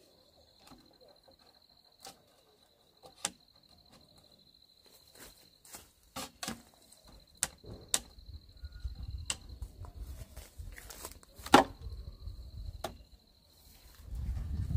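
Scattered sharp clicks and knocks, the loudest about two thirds of the way in, over a steady high insect trill, with a low rumble setting in about halfway through.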